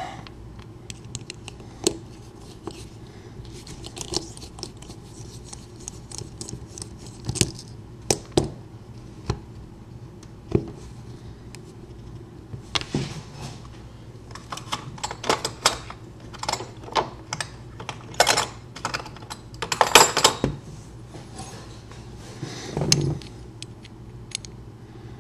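Small metal lock parts and tools clicking and clinking as a pinned mortise lock cylinder is taken apart. The clicks come singly and irregularly at first, then in quicker clusters in the second half.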